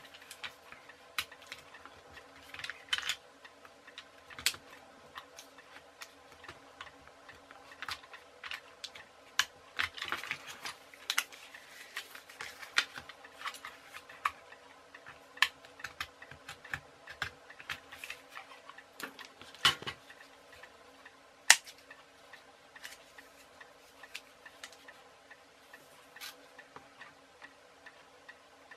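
Light, irregular clicks and taps from small hand tools and plastic drinking straws being handled and cut on a cutting mat, over a faint steady hum.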